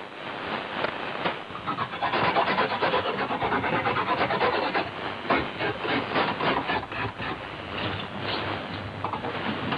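Fresh ginger being grated on a grater, a steady run of quick scraping strokes, heard over a shortwave AM broadcast with its narrow, noisy sound.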